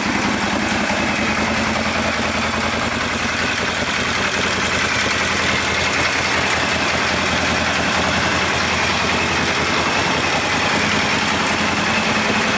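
Moto Guzzi Stelvio 1200's air-cooled transverse V-twin idling steadily.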